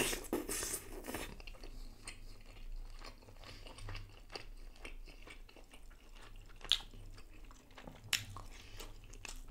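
Close-miked biting into a soft piece of tandoori fish, then chewing. A louder bite comes in the first second, followed by soft chewing with scattered ticks and two sharp clicks later on.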